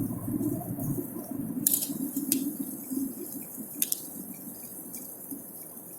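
Low rumble of traffic in a road tunnel fading away as a vehicle passes, with a few short sharp clicks in the first four seconds.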